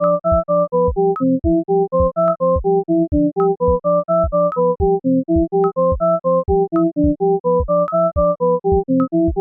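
Background music on a synthesizer: a bouncy keyboard tune of short notes stepping up and down over a steady bass note and a regular kick-drum beat.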